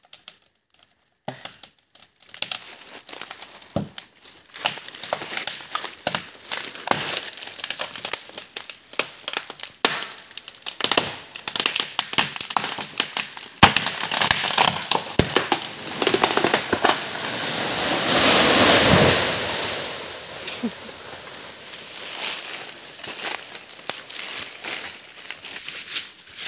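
Dry leaves, twigs and brush crackling and crunching underfoot, with scattered sharp snaps. About two-thirds of the way through, a louder rustling rush swells up and fades over a few seconds.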